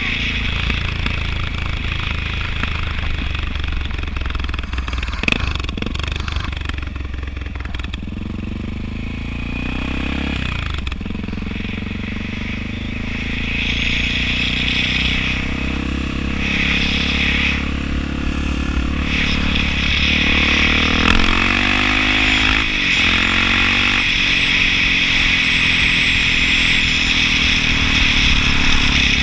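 Honda XR650L's air-cooled single-cylinder four-stroke engine running under way, its note rising and falling with the throttle, with marked drops in pitch about ten and twenty-two seconds in. Wind rushes over the helmet-mounted microphone throughout.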